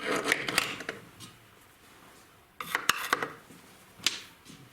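Metal parts and tools clinking and clattering as they are handled on a workbench, in two short bursts with a single click near the end.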